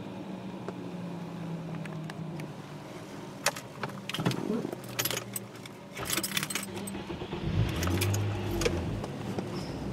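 Folding exit doors of an automatic car wash opening, with a series of sharp metallic clatters and knocks, over a low hum that fades in the first few seconds. Near the end a new low steady drone comes in as the car starts to move off.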